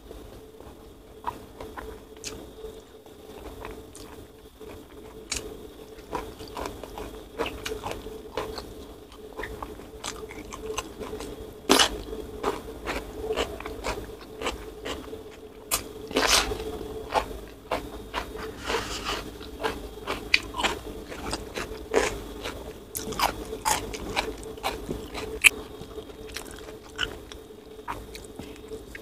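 Close-up eating by hand: chewing with irregular sharp crunches of rice, raw vegetables and petai beans.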